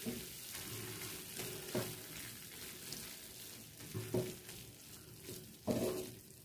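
Egg and vegetable fry sizzling in a hot non-stick pan after the burner is switched off, while a plastic spatula stirs it through. There are a few scrapes of the spatula against the pan, the loudest near the end.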